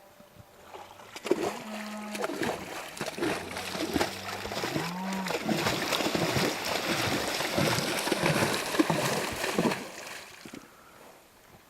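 Splashing and sloshing of shallow river water as animals wade through it, thickest from about two to ten seconds in. Two short lowing calls from cattle come in the first half.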